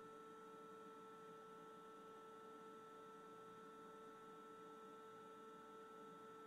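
Near silence with a faint, steady electrical hum in several unchanging tones.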